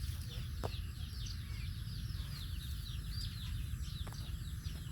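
Many young animals peeping at once: a dense chorus of short, high-pitched falling squeaks, several a second, over a steady low rumble.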